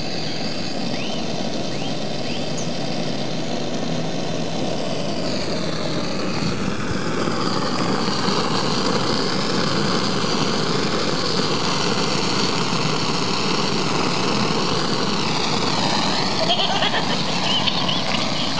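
Handheld gas blowtorch on a blue screw-on cartridge, its flame running with a steady hiss that wavers slowly in pitch as it is played over a plush toy's synthetic fur.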